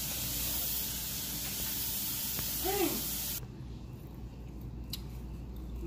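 Steady broad hiss that cuts off abruptly about three and a half seconds in, leaving a quieter background with a few faint clicks.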